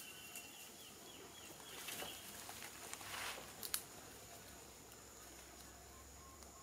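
Quiet outdoor ambience of faint rustling in dry leaf litter, with a sharp click a little after halfway. A steady high insect whine sits underneath.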